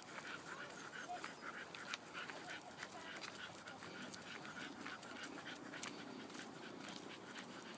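Dogs panting on a walk, a quick run of short breaths, with light clicks and scuffs of steps on the paved path.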